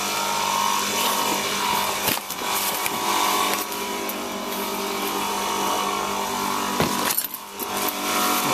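Steady hum of refrigeration condensing units running, the compressor and condenser fan droning with many pitched tones, with a few sharp knocks from handling near the end.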